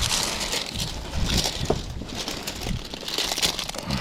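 Plastic sheeting being pulled off and crumpled: an irregular crinkling rustle that swells and fades.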